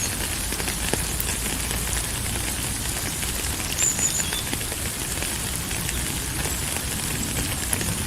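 Steady rain with many close drops pattering and ticking. A brief high chirp sounds about four seconds in.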